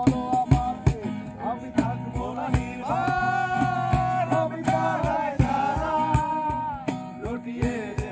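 Music: a song with a sung melody, held notes in the middle, over a steady percussive beat.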